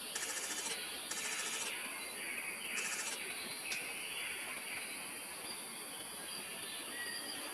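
Bird and insect chorus: insects trill in on-and-off pulses over a steady high hiss, with birds chirping beneath.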